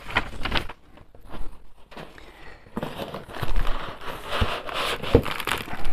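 Plastic air-cushion packaging crinkling and rustling as it is handled and lifted out of a box, quieter at first and denser from about halfway in, with two soft knocks near the end.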